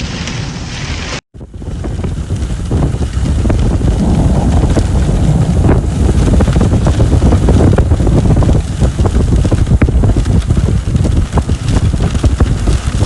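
Strong storm wind buffeting the microphone: a loud, gusting low rumble that swells and falls. About a second in there is a brief break, and before it a steady hiss like rain.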